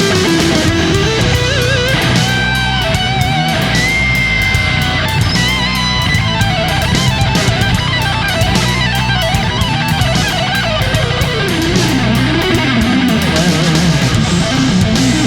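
Background rock music: an electric guitar playing a lead line with bent and sustained notes over a steady bass and drums.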